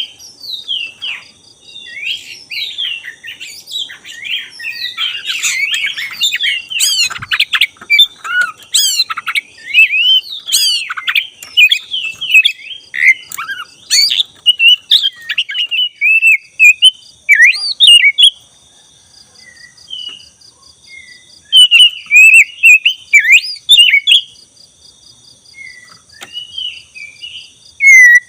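Oriental magpie-robin (black-breasted 'kacer dada hitam') singing a loud, varied stream of whistles, trills and chirps, with short pauses about two-thirds of the way in and again near the end. Faint steady high-pitched tones run behind the song.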